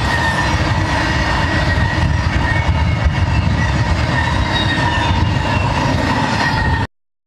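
Intermodal freight cars carrying trailers and containers rolling past at speed: steady wheel-on-rail noise with a faint high whine above it. It cuts off suddenly near the end.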